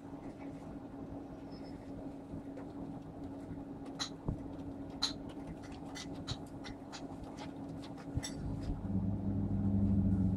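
A steady low electrical hum with a run of light, sharp clicks in the middle; a second, louder low hum comes in about eight seconds in.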